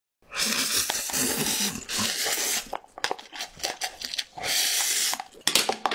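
Instant cup noodles being slurped, three long slurps, with short wet clicks of chewing and mouth sounds between them.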